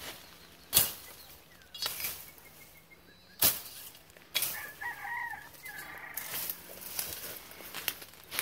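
Machete chopping through brush: about four sharp cuts, with leaves and stems rustling in between. A rooster crows once near the middle.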